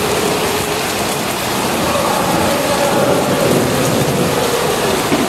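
A football stadium crowd singing and chanting, heard from far off as one steady, wavering roar, mixed with the hiss of steady rain.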